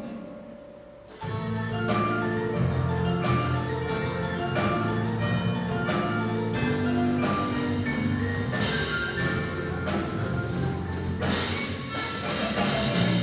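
Indoor percussion ensemble playing: marimbas and other mallet keyboards strike fast repeated notes over held low bass tones, coming in together about a second in after a brief lull. A bright crash swells up near the end.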